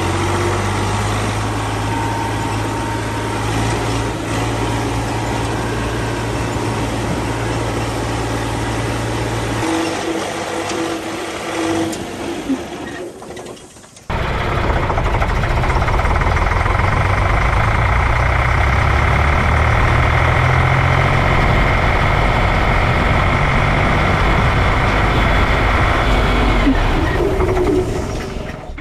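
A tractor's diesel engine running steadily under way; its low note drops away about ten seconds in as the tractor slows in a brake test. Then a tractor drives over with its engine loud and close, until it fades near the end.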